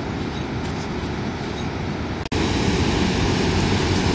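Steady rushing of the Big Sioux River's waterfall. It breaks off for an instant a little over two seconds in and comes back louder.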